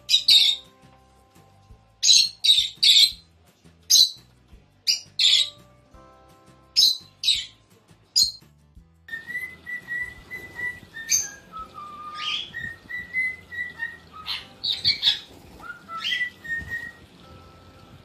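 Pet lovebirds calling with shrill, sharp squawks in quick clusters of two or three. About halfway through, the calls turn softer and are joined by a held whistled note that steps up and down in pitch, over a faint trickle of water.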